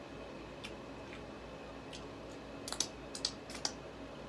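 Eating and shell-peeling sounds from a seafood boil handled by hand: a few sharp, scattered clicks and cracks, most of them bunched together about three seconds in, over a low steady hum.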